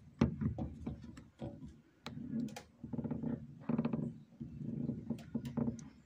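Pliers gripping and working at the plastic mesh water-inlet filter seated in a Panasonic washing machine's hose inlet: a few sharp clicks and scrapes, with several short low pitched sounds in between.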